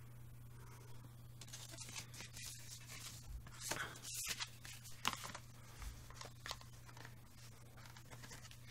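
Faint handling of a CD and its cardboard CD wallets: scattered light scrapes and rustles of card and paper, over a low steady hum.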